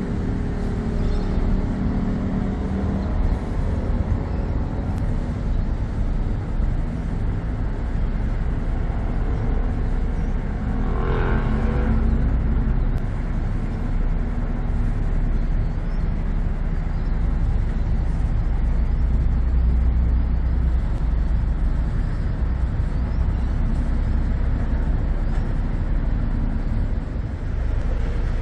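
Steady low rumble of engines and road traffic over a busy city harbourfront, with a brief louder sound rising out of it about a third of the way in.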